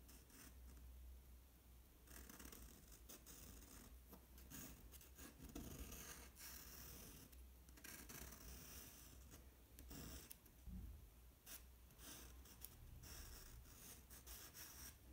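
Faint scratching of a pencil drawing on sketchbook paper, in short strokes that stop and start, with small taps of the point.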